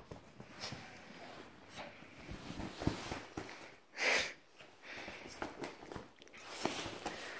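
A small dog shaking and worrying a pillow in its mouth: irregular soft thumps, fabric rustles and scuffles on a rug, with one louder noisy burst about four seconds in.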